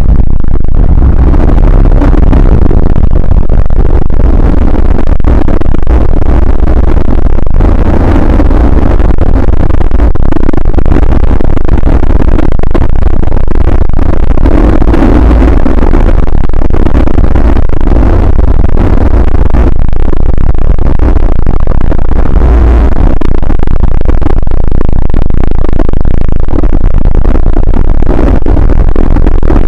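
Harsh, heavily distorted noise played at full volume, with a deep rumble underneath and a swell every six or seven seconds: the alarm sound of a mock emergency alert broadcast.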